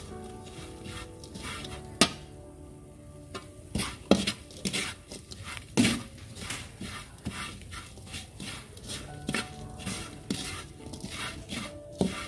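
Coconut jam being stirred in a pan over low heat as its sugar dries: a utensil scraping and knocking against the pan in quick, irregular strokes.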